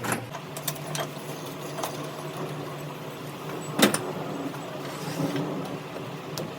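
Steady low mechanical hum with a few scattered sharp knocks, the loudest about four seconds in.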